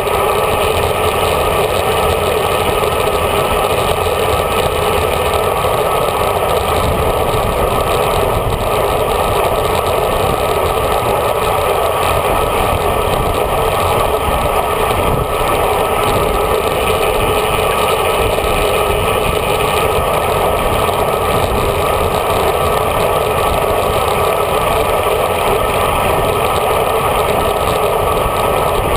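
Steady, loud wind and road noise picked up by a handlebar-mounted GoPro inside its housing, on a road bike riding at speed.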